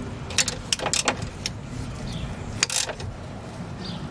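Hand tools clicking and knocking against the seized rear lower control arm bolt of a 1997 Honda Civic, about seven short sharp clicks in the first three seconds, over a steady low background hum.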